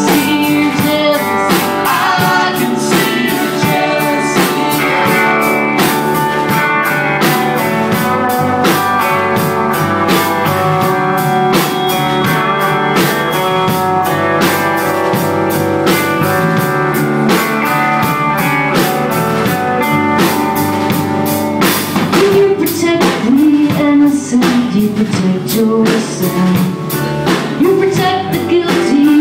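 Live rock band playing loudly: electric guitars over a drum kit, with a singer's voice coming in over the band for the last several seconds.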